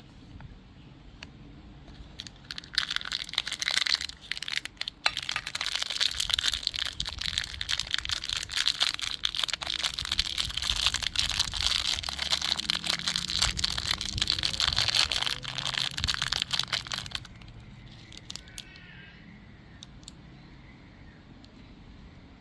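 Crinkling and crackling of plastic candy packaging being handled, a dense run of small crackles lasting about fifteen seconds that stops suddenly, leaving only faint handling noise.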